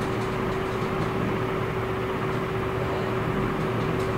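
Steady mechanical hum: an even hiss with one constant pitched tone running underneath, with a few faint light ticks.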